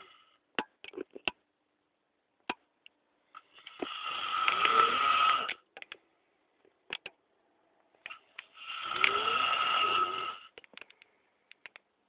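A man snoring in his sleep: two long snores of about two seconds each, some five seconds apart, with faint short clicks in the quiet between them.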